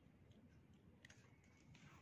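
Near silence with faint handling of a cardboard model: a small click about a second in and a brief soft rustle near the end.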